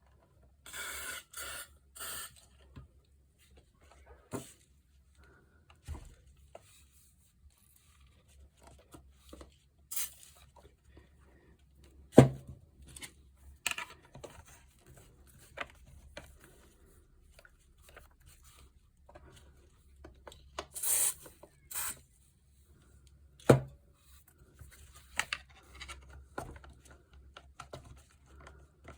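Handling noises while the Makita JR3070CT reciprocating saw is being taken apart: scattered clicks and knocks, two of them sharp, and short rustling, scraping bursts near the start and about two-thirds of the way through.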